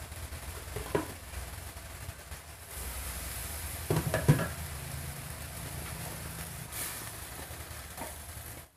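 Chicken breast and vegetables sizzling steadily in a frying pan over a gas burner, with a few brief knocks of a spatula in the pan, the loudest about four seconds in.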